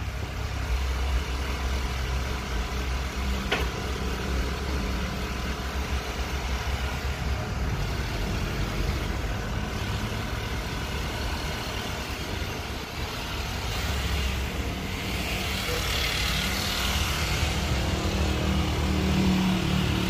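Motor vehicle running with a steady low rumble. A single sharp click comes about three and a half seconds in, and a hiss swells and fades about three-quarters of the way through.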